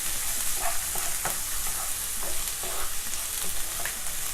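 Chopped onions sizzling in hot sesame oil in a kadai, with a spatula scraping and stirring them every second or so. The onions are being sautéed until golden.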